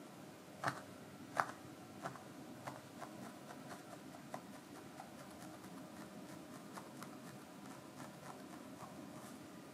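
Felting needle stabbing repeatedly into wool roving: a run of soft, quiet ticks, the two loudest about a second in, then fainter and quicker ones.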